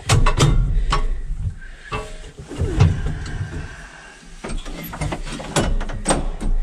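Clunks and rattles of an old Massey Ferguson tractor's gear-shift levers being worked in the cab while it is put in neutral before starting, over a low steady rumble.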